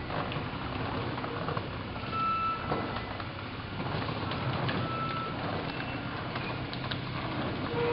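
Large overhead garage door running on its opener: a steady mechanical rumble with a low hum, and a few brief high squeals or beeps at irregular moments.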